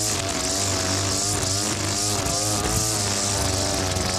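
Petrol string trimmer (whipper snipper) running and cutting grass, its engine pitch rising and falling as the throttle is worked. A steady low engine hum runs underneath.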